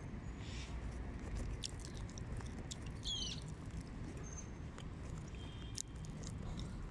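Outdoor walking ambience: a low rumble of wind and handling on the microphone, scattered short clicks of footsteps, and a few bird chirps, one a quick zigzag call about three seconds in.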